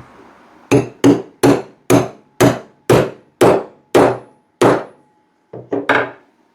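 Hammer driving a rebar burr-setting tool to press a copper burr onto a rivet on a steel bench anvil: nine steady, evenly spaced strikes, each ringing briefly, then three quick lighter taps near the end.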